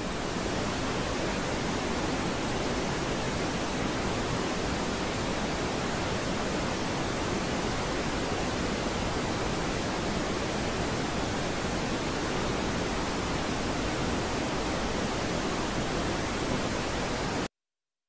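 Waterfall rushing steadily, cutting off suddenly near the end.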